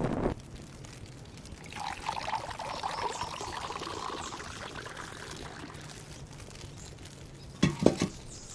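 Dark herbal medicine poured from a pot into a porcelain bowl, a trickling stream for about three seconds. A quick pair of sharp knocks comes near the end.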